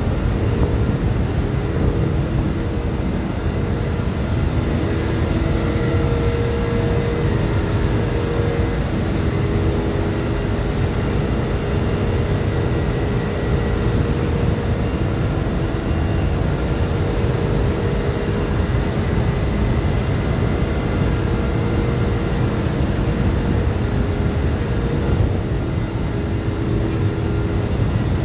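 Steady, loud machinery din of a ship's engine room, with a heavy low rumble and a few steady humming tones that come and go.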